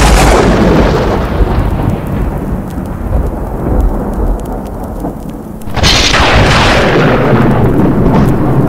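Thunderstorm sound effect: two rolling thunder crashes, one right at the start and another about six seconds in, each striking suddenly and fading slowly over steady rain.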